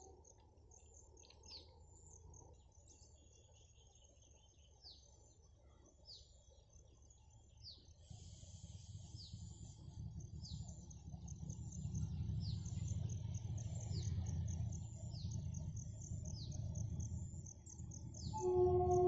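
A bird repeats a short falling chirp about once a second over a steady high insect trill. From about eight seconds in, the low rumble of a narrow-gauge diesel locomotive's engine grows louder as it approaches, and its horn sounds near the end.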